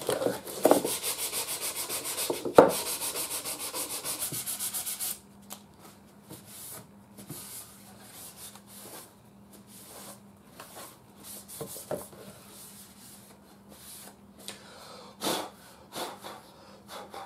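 Sanding the finish of a small wooden radio cabinet, with rapid back-and-forth strokes, to break up the fine cracks in the old finish. One sharp knock comes partway through; the strokes stop about five seconds in, followed by faint, scattered rubbing and handling.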